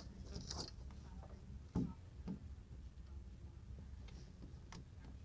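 Phone handling noise: a few soft knocks and clicks over a faint low rumble.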